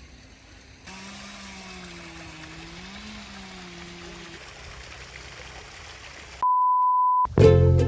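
Steady rushing water, with a faint low hum that wavers in pitch for a few seconds. About six and a half seconds in, a short pure beep sounds alone, and plucked ukulele-style music starts near the end.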